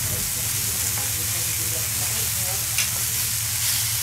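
Raw beef hanging tender sizzling on a hot steel fire plate as a second piece is laid down and pressed with tongs, with a steady low hum underneath. A short click about three quarters of the way through.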